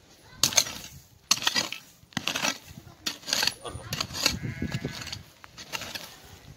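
Short-handled hoe chopping into dry, packed earth: repeated hard strikes about one a second as a snake's burrow is dug open, with soil and dry grass scraping between blows.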